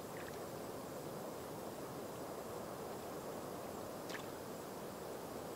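Steady, even outdoor background noise with no distinct source. Two faint, short, high chirps stand out, one right at the start and one about four seconds in.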